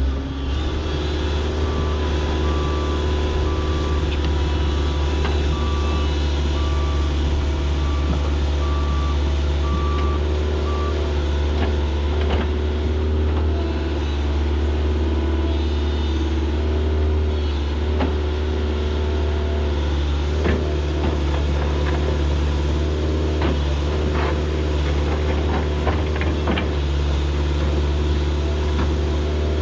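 Kobelco SK160 excavator's diesel engine running steadily under load, with a backup alarm beeping evenly for the first ten seconds or so. Later come scattered clanks and knocks, typical of the bucket breaking up frozen fill.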